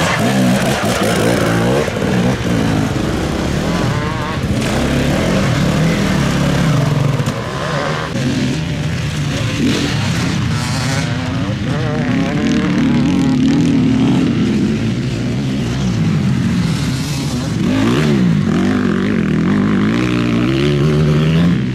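Enduro motorcycle engines revving, their pitch rising and falling again and again with the throttle.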